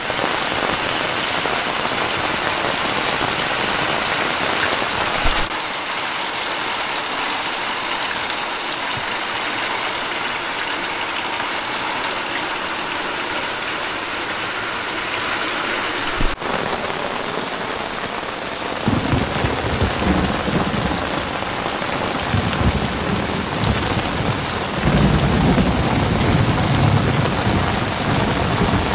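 Heavy rain pouring down on a corrugated roof and running off its edge, a dense steady hiss. From about two-thirds of the way through, low rumbling surges come and go under the rain.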